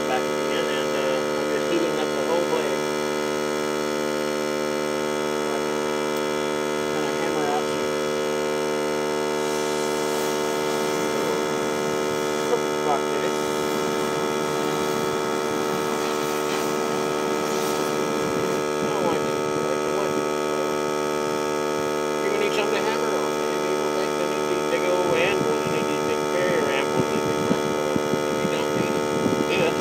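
A steady electrical hum made of many even tones, unchanging throughout, with faint rustles and clicks over it in the middle and near the end.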